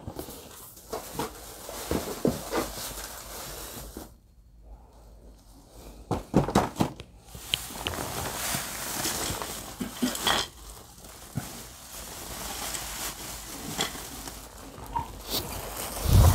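Handling noises: rustles and light clicks of packaging and a plastic storage bin, then white wrapping paper crinkling as an item is unwrapped, with a dull thump near the end.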